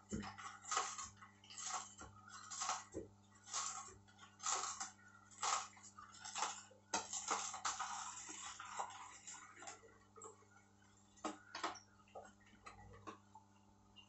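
Horizontal slow juicer running with a steady motor hum while its auger crushes celery stalks into juice, giving repeated crunching snaps. The snaps come thick and fast for the first several seconds, then thin out to occasional cracks after about ten seconds.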